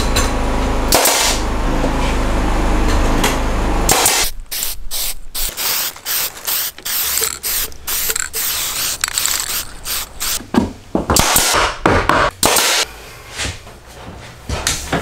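Handheld paint sprayer running: a steady hiss of spray over a low pump hum for about four seconds, stopping abruptly. After that come a series of separate short clicks and knocks.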